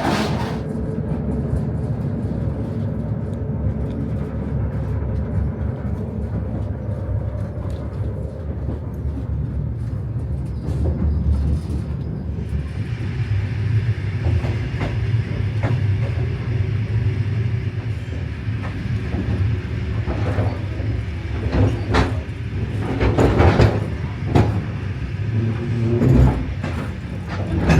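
Passenger train running on the rails: a steady low rumble, with a few sharp knocks a little past two-thirds of the way through.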